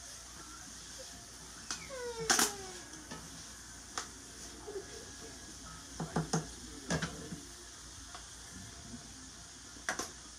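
Shrimp sizzling in a skillet while being stirred, with a utensil clinking and knocking against the pan. The knocks are loudest about two seconds in and again around six to seven seconds.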